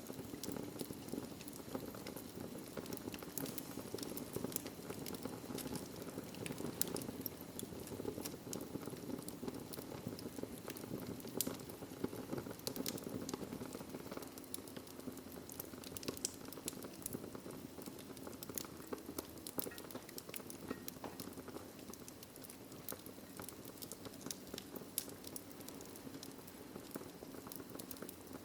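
Fire burning in a fireplace, crackling: a steady low rush from the flames with frequent small, sharp pops and snaps.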